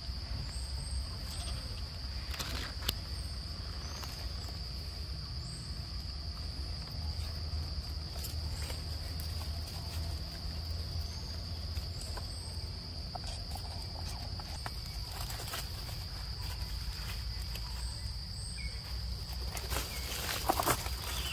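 Insects droning in one steady high-pitched tone over a low rumble, with a few faint short chirps. Near the end, dry leaves rustle and crackle as a baby monkey moves across them.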